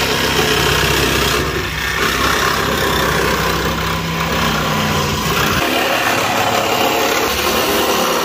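Corded power saw running and cutting through the sheet-metal roof pillar of a car body, a steady loud mechanical buzz of motor and blade on metal.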